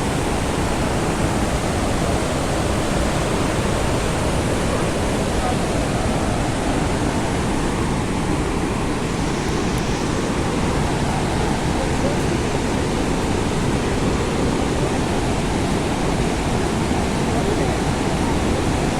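Steady roar of the Rhine Falls: a large river waterfall rushing without a break.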